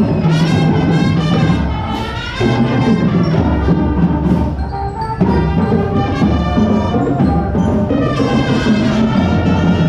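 Music with brass and percussion and a steady beat.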